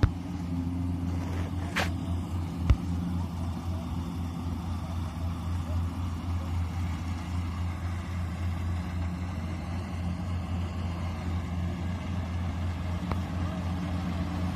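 Daedong DSC62G combine harvester's engine running at a steady drone, with one sharp click a little under three seconds in.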